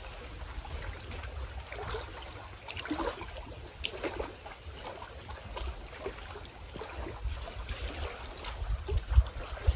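Small lake waves lapping against the shore in soft, irregular splashes, with a few low gusts of wind buffeting the microphone near the end.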